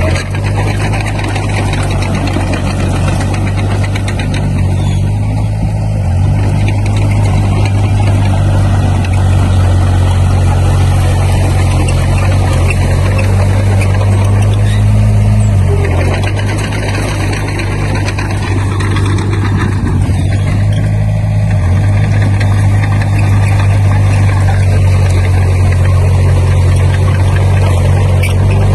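Komatsu D20P bulldozer's diesel engine running steadily under work, a loud low drone whose pitch steps slightly a few times, most clearly about halfway through.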